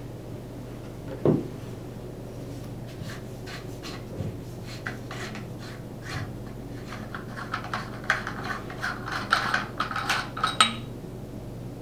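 Handling of an air-powered sealant gun: a single knock about a second in, then a run of short clicks and scrapes as the black end cap is unscrewed from the metal barrel, busiest in the last few seconds before it stops.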